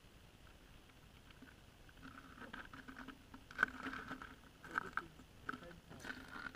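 Boots shuffling and stepping on the crusty ice right beside the microphone, from about two seconds in. There are a few sharper knocks and crunches, the loudest a little past halfway.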